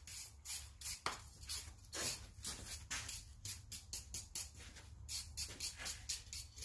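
Brass wire brush scrubbed hard over a hot steel bottle opener in quick scratchy strokes, about three a second, laying a brass finish onto the black-hot steel. A steady low hum runs underneath.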